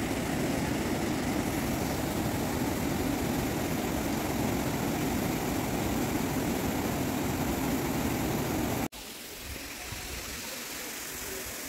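Steady rushing noise of a mountain stream running over a rocky bed. About nine seconds in it drops suddenly to a quieter, steadier hiss.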